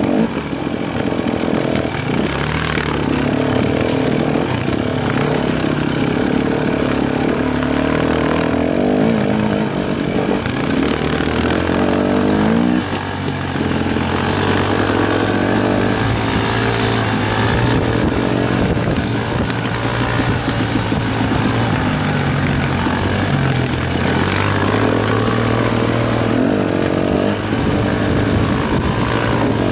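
Dirt bike engines running at trail-riding speed, their pitch rising and falling with throttle and gear changes. About 13 seconds in the sound dips briefly, then revs back up.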